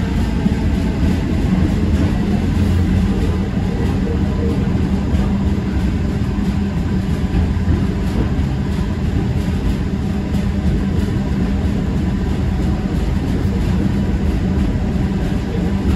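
Tram running along its track: a steady rumble of motors and wheels on rail, with a constant low hum.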